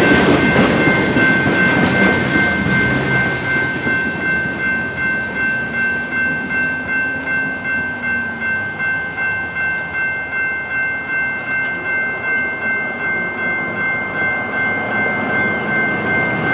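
Railroad crossing bell ringing steadily, about two strokes a second, while the crossing signals are active. It rings over the rumble of freight car wheels, which fades over the first couple of seconds as the last car rolls clear.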